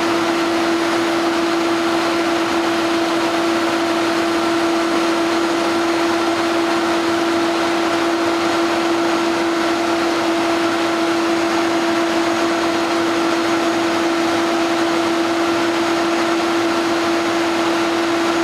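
Concrete mixer running steadily: a constant mechanical hum with a rushing noise beneath it, unchanging throughout.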